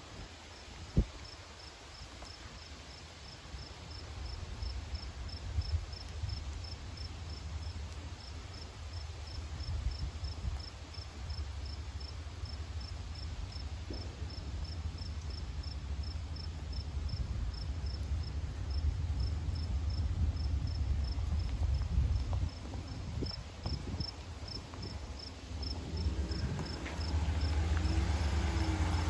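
Ram pickup truck's engine running as it creeps along a dirt trail, a low rumble that grows louder as it comes closer. Over it an insect chirps steadily, with evenly spaced high chirps, and a single sharp click sounds about a second in.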